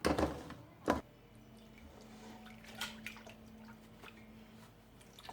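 Carob juice dripping and trickling as boiled carob pulp is squeezed through a tulle cloth, after two sharp knocks in the first second.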